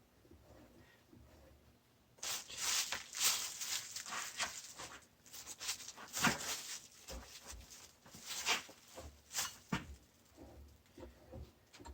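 Hand tools and metal parts clicking and clattering during work on a Yamaha Wolverine's secondary clutch spring and nut. The clatter starts about two seconds in and goes on in quick irregular clicks until near the end.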